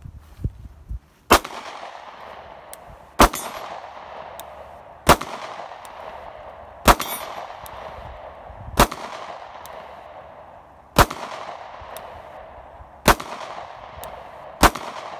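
Sig P365 9mm pistol fired one-handed, eight shots spaced about two seconds apart. Each shot is followed by a ringing tail that carries the clang of a steel gong target.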